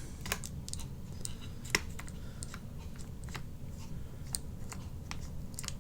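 Light plastic clicks and taps, scattered and irregular, as the parts of a Mazda 3 door lock module are worked by hand; the mechanism keeps jamming when one piece is fitted.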